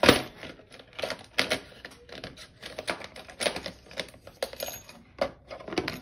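A quick, irregular run of light clicks and taps of small hard objects, a few a second, like typing.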